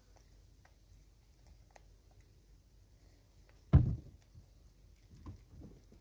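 A vervet monkey feeding on maize kernels on a tree stump right by the microphone: faint clicks of kernels being handled, one dull thump a little under four seconds in, and a few softer knocks about a second later.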